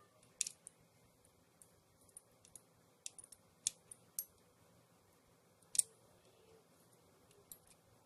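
Faint, scattered light clicks and ticks from fingers handling the opened laptop hard drive's small metal parts, with a few sharper ticks about half a second in, after three and a half seconds and near six seconds.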